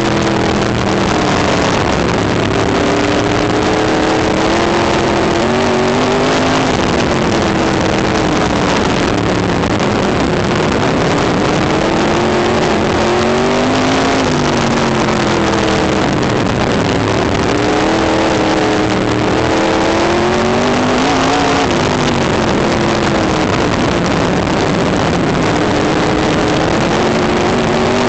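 Race car engine heard from the cockpit at race pace, loud throughout, its pitch rising and falling in long swells every several seconds as the car laps the track.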